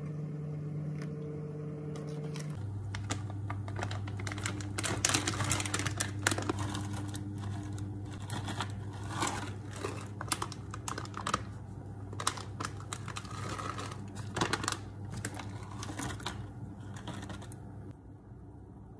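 Paper towel crinkling and rustling in quick, irregular crackles and clicks as it is handled and wiped over a wet wooden cutting board. These die away near the end. Underneath is a steady electrical hum from the switched-on induction hob, which shifts pitch about two seconds in.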